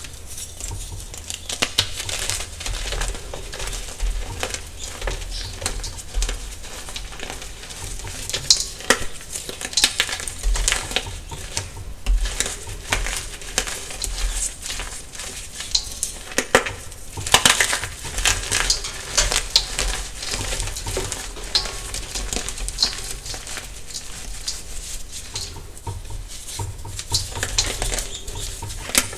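Soft dyed gym chalk being crushed and crumbled: a dense run of crunchy crackles and crisp snaps, with a louder flurry of crunches a little past halfway.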